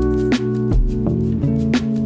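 Background instrumental music: plucked-string notes over a bass line with a steady beat.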